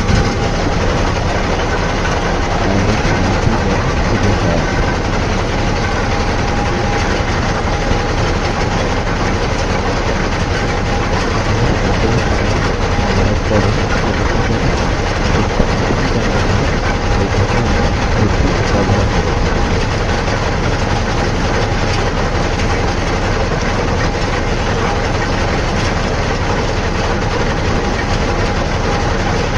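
Heavy construction machinery engine running steadily with a faint steady whine.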